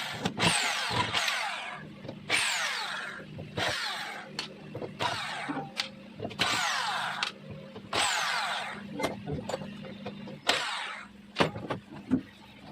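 A small hand-held power drill or electric screwdriver runs in repeated short bursts, about one every second or so. Each burst has a whine that falls in pitch. A steady low hum sits underneath.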